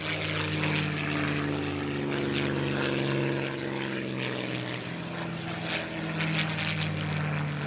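Piston-engined WWII fighter aircraft flying past, their propeller engines droning steadily, easing slightly about midway and then building again.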